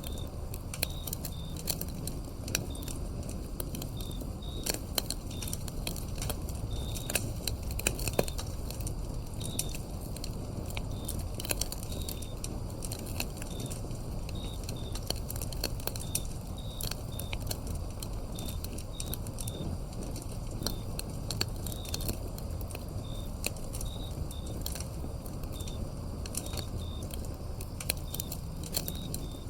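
Wood fire burning with a low steady rumble and frequent sharp crackles and pops, over crickets chirping in short high chirps about once a second.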